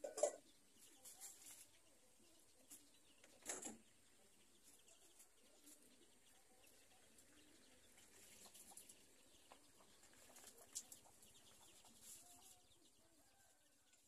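Near silence, broken by two short noises, one right at the start and one about three and a half seconds in.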